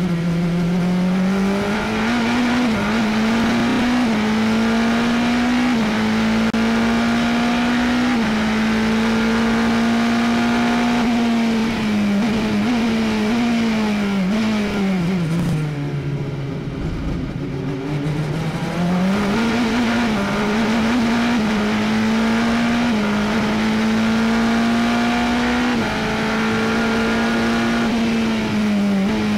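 Glickenhaus 007 LMH's twin-turbo V8 heard from inside the cockpit at racing speed, its note jumping in steps as gears change. About halfway through the pitch falls low as the car slows for a corner, then climbs again through the gears.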